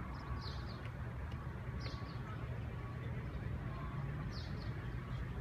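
Urban outdoor ambience: a steady low rumble of distant traffic, with three short high bird chirps a second or two apart.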